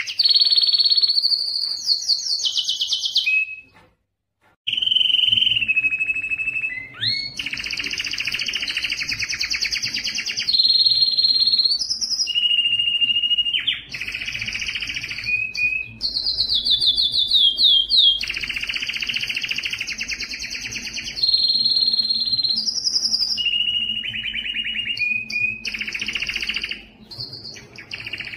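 Domestic canary singing a long song of rapid rolls and trills, each held a second or two before jumping to a higher or lower pitch, with a brief pause about four seconds in.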